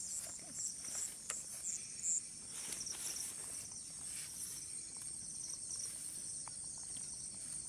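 Insects, crickets by their sound, chirping in a steady high-pitched chorus, with a few short soft clicks in the first couple of seconds.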